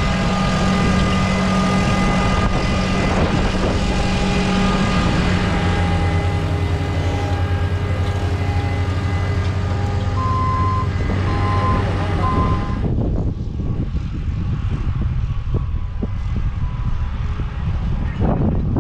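Farm machinery engines running steadily, their low drone changing pitch about six seconds in. Three short, even beeps come near the middle, like a vehicle's reversing alarm. About two-thirds of the way through, the engine sound cuts to a quieter, steady rushing noise with scattered clicks.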